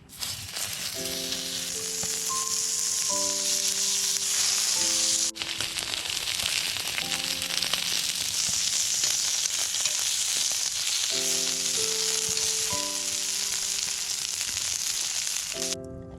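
Food frying in a pan, a loud steady sizzle with a brief break about five seconds in, cutting off suddenly near the end.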